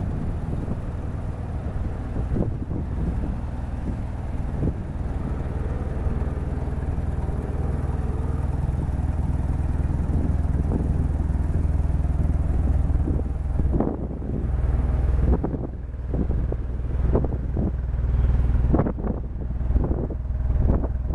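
Mazda RX-7 FD3S's 13B-REW twin-turbo two-rotor rotary engine idling, a steady low hum that grows louder and more uneven in the second half.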